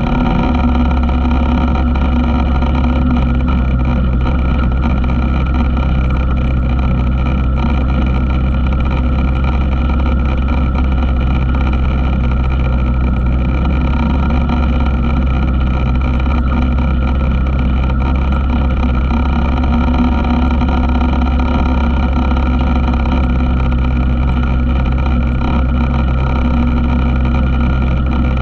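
ATV engine running at a steady, unchanging speed, close and loud throughout.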